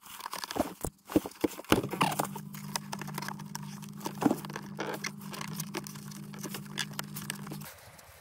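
Clicks, knocks and rustling from hands working inside a car's cabin. After about two seconds a steady low hum starts and runs for about six seconds, then cuts off suddenly near the end.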